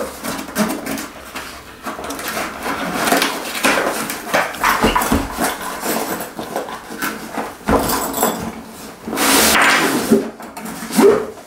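Cardboard box being handled and opened: repeated knocks and rustles of the cardboard and its flaps, then a longer scraping rustle near the end as the padded tripod case is slid out of the box.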